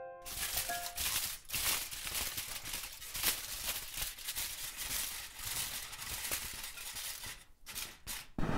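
A sheet of aluminium foil crinkling and crackling as it is folded and shaped by hand, with a brief pause near the end.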